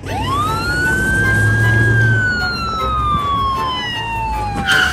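Police siren: a single wail that rises quickly at the start, then falls slowly for about four seconds, with a short sharp sound just before it ends.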